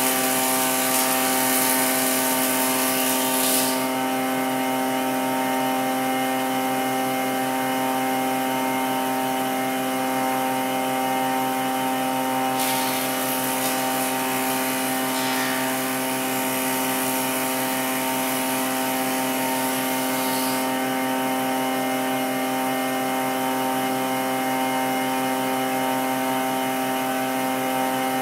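Nishino Seisakusho MK-900 combination woodworking machine running, a steady motor and cutter hum. A brighter hiss rises over it for the first few seconds and again for about eight seconds in the middle.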